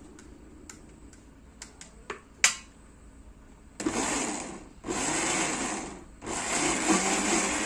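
Philips electric countertop blender run in three short pulses of about a second each, chopping fresh henna leaves into a wet paste. Before it starts there are a few light clicks.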